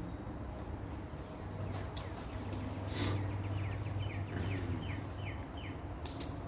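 A bird calling outdoors: a series of about seven short, down-slurred notes, about three a second, over a steady low hum.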